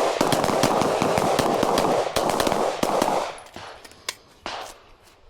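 Rapid pistol fire on a range: many shots in quick succession for about three and a half seconds, then a few separate shots near the end.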